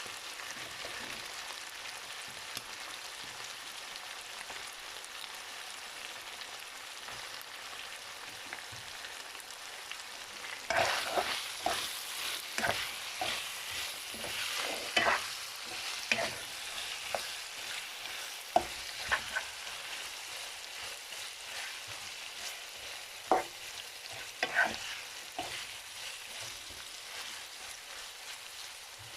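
Chicken pieces frying in oil in a wok, with a steady sizzle. From about eleven seconds in, a metal spatula knocks and scrapes against the wok many times as the food is stirred.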